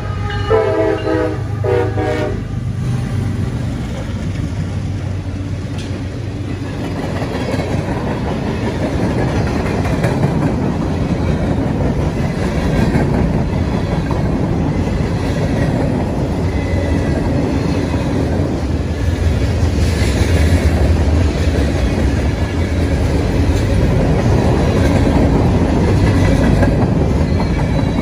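A CSX freight locomotive's air horn sounds in the first two seconds, breaking off in a couple of short blasts. Then the locomotives pass close by, followed by a long train of covered hopper cars, their steel wheels rumbling over the rails and growing louder toward the end.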